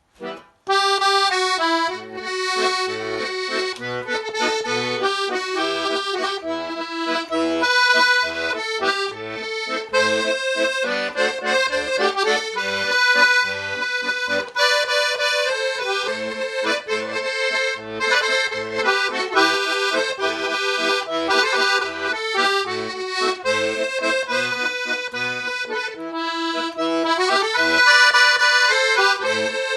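Russian garmon (button accordion) playing a tune: a melody of reedy notes over short, regularly repeated bass notes, starting just under a second in.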